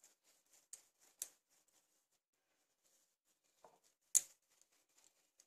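Hands pinching kneaded samosa dough into balls in a glass bowl: a few light clicks and taps, the loudest about four seconds in, with near quiet between.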